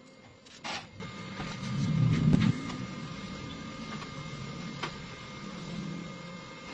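A machine starts running about a second in, a steady hum with a faint high whine, louder for a moment about two seconds in.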